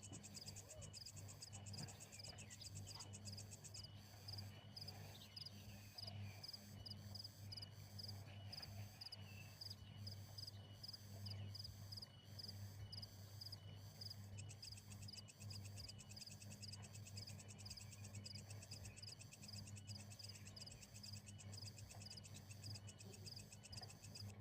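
Faint chirping chorus of night insects, high pulses repeating a few times a second without a break, over a steady low hum.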